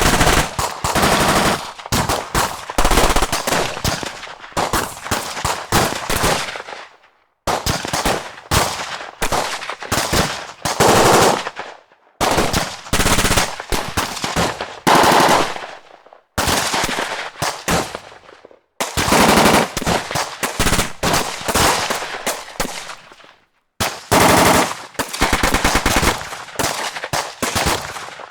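Automatic gunfire in a battle sound effect: rapid bursts of shots, each burst lasting a few seconds with short breaks between them, several times over.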